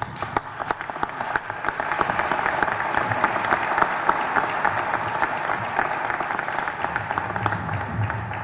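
Audience applauding, swelling about a second in and thinning out near the end.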